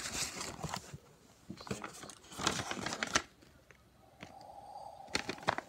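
A sheet of paper rustling and crinkling as it is handled, in several short bursts.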